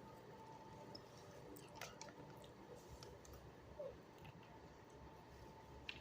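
Quiet eating close to near silence: faint chewing with a few soft clicks scattered through.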